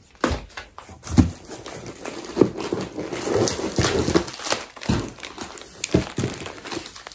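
Plastic and paper packaging rustling and crinkling as items are handled and pulled out of a cardboard box, with a few soft knocks in between.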